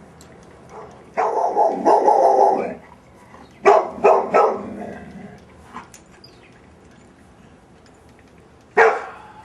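Dog barking: a dense run of barks about a second in, then three sharp barks in quick succession, and one more bark near the end.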